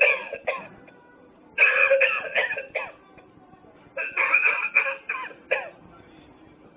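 Novelty coughing ashtray playing a recorded cough through its small speaker, in repeated fits. A fit ends just after the start, and two more fits of several hacks each follow, around two and four seconds in, each lasting about a second and a half.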